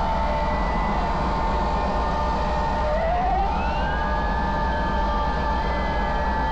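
Motor vehicles running, with a steady deep rumble and a high steady whine; about three seconds in, a second whine rises in pitch and then holds.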